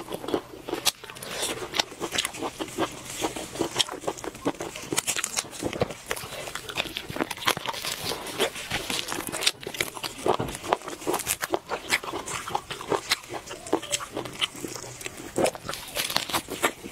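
Close-miked eating of spiced sheep's head meat: a continuous run of wet chewing, biting and smacking with sharp crunchy clicks.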